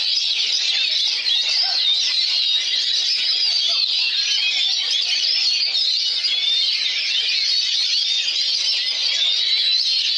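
Oriental magpie-robin singing within a dense, unbroken chorus of many other songbirds, their overlapping whistles and trills all sounding at once.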